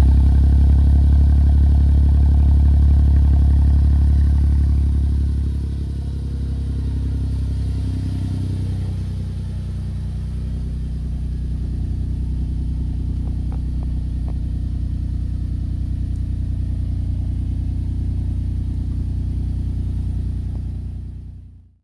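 Smart Roadster's 0.7-litre turbocharged three-cylinder engine idling steadily while warming up after a cold start. It is loud at the twin exhaust tips and drops to a quieter, steady idle about five seconds in, as heard from inside the cabin, then fades out near the end.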